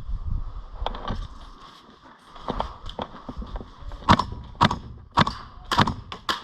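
GHK AK74M gas-blowback airsoft rifle firing single shots, each a sharp crack of gas and bolt. There are about seven shots, two spaced well apart at first, then about two a second from about four seconds in.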